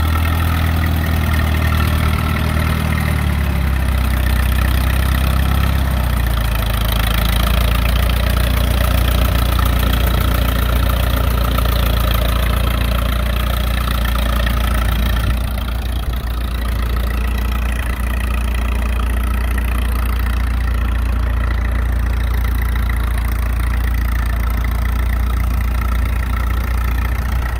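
1951 Allis-Chalmers WD tractor's four-cylinder gasoline engine idling steadily. Its low engine note shifts over the first several seconds, then holds even.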